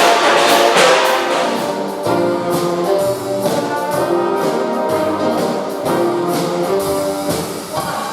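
Big band swing music with the brass section of trumpets and trombones playing: loud full-ensemble chords with cymbals for about the first two seconds, then a softer passage of held chords.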